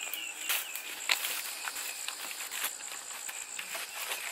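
Wooden poles and dry leaf litter being handled on the forest floor: scattered knocks and crackles about every half second as the poles are moved and a line loop is slipped over their ends. Insects drone steadily at a high pitch underneath.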